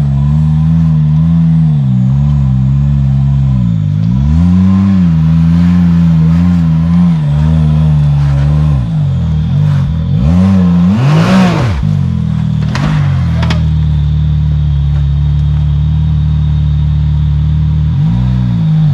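Side-by-side UTV engine running at a low crawl, its pitch dropping and rising again several times as the throttle is blipped. About halfway through it revs up sharply and falls back, with a couple of knocks just after.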